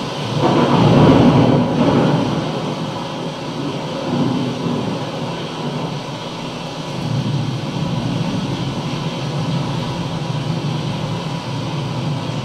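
Steady low rumbling noise, swelling to its loudest about a second in, then settling to an even rumble.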